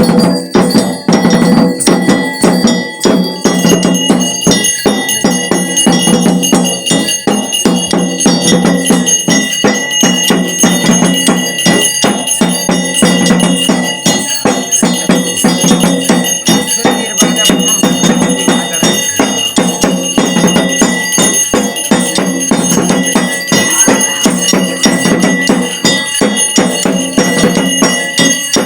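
Bells ringing continuously over fast, steady drumming: loud devotional ritual music with no singing.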